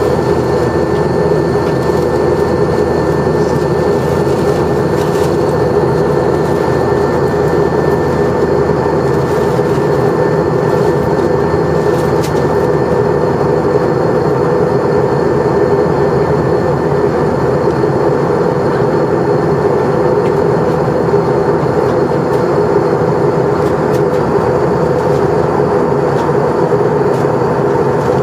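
Steady cabin noise inside an Airbus A321 airliner in flight: engine and airflow noise, with a faint steady high whine over it.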